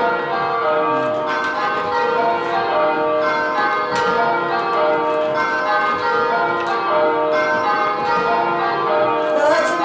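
Church tower bells rung full-circle by a band of ringers, striking one after another in a steady, unbroken rhythm with their ringing tones overlapping. This is kaleidoscope (dynamic pairs) change ringing, in which pairs of bells hold and swap places in the order.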